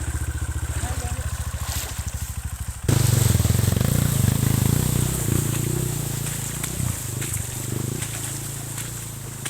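Motorcycle engine running with an even, pulsing beat. About three seconds in the sound jumps abruptly louder and rougher, the engine now mixed with a rushing noise, then slowly eases off.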